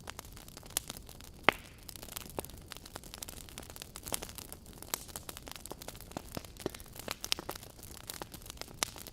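Logs burning in a fireplace, crackling with irregular sharp pops over a soft steady hiss; the loudest pop comes about one and a half seconds in.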